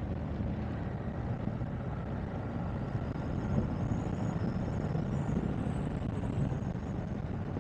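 BMW F 750 GS motorcycle's parallel-twin engine running steadily while cruising in fifth gear and gently gaining speed, mixed with wind and road noise.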